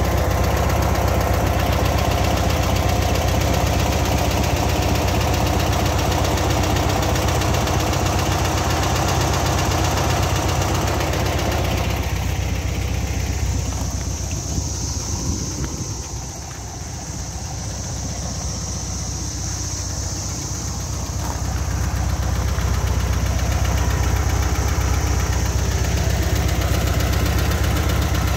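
1970 Volkswagen Beetle's air-cooled flat-four engine idling steadily. It grows quieter for several seconds around the middle, then comes back up to its earlier level.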